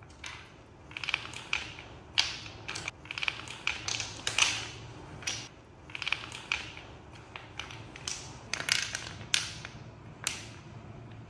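Wooden toy blocks clacking against each other and on a hard tiled floor as they are picked up, shuffled and dropped: an irregular run of sharp knocks, some single, some in quick clusters.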